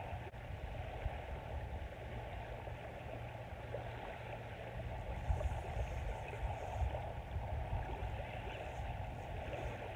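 Small waves washing onto a sandy beach, a steady wash of water noise over a low rumble.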